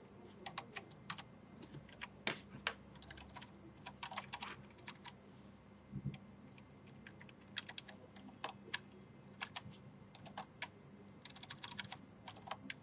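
Computer keyboard being typed on: faint, irregular key clicks, with a quicker run of keystrokes near the end.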